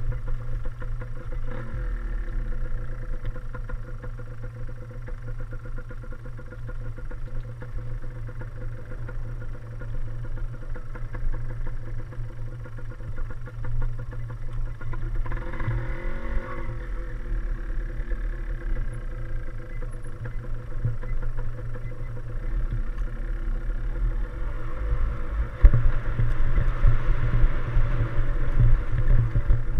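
Yamaha DT175 single-cylinder two-stroke dirt bike engine running under way, its note changing pitch with the throttle around the middle. One sharp knock comes near the end.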